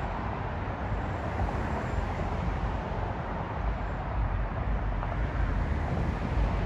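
Steady rushing outdoor noise from a kayak out on the water, with a low fluttering rumble of wind on the microphone.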